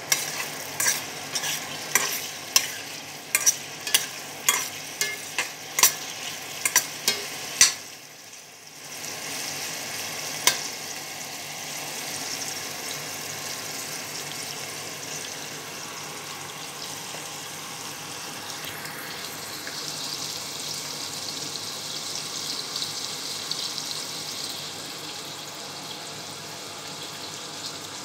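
Sliced onions sizzling as they sauté in a stainless steel pot, with a metal spoon knocking sharply against the pot about twice a second while stirring. After about eight seconds the knocking stops and a steady sizzle carries on, with one more knock a little later.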